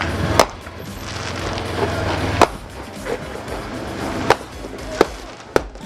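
Sharp pops of firecrackers going off at irregular intervals, about five in a few seconds, over music.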